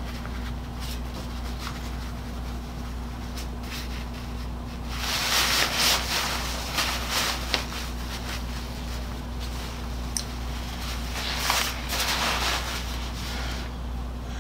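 Synthetic leaf drag bag fabric rustling and rubbing as it is handled and smoothed flat, loudest about five to six seconds in and again around eleven to twelve seconds, over a steady low hum.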